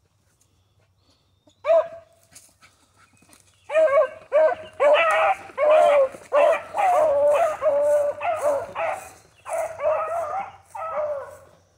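Beagles bawling on a scent trail, the hound voice of dogs giving tongue as they run a track: a single call about two seconds in, then from about four seconds a near-continuous run of about a dozen long, drawn-out bawls.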